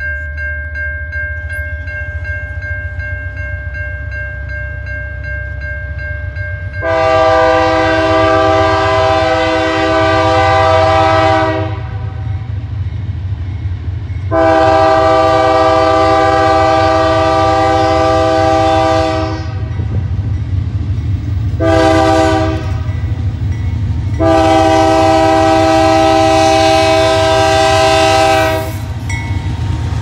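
Air horn of the leading BNSF diesel locomotive 5606 blowing the grade-crossing signal: two long blasts, one short, then one long. The crossing bell rings at first, and under it all runs the low rumble of the approaching freight train's diesel engines, growing louder near the end as the locomotives reach the crossing.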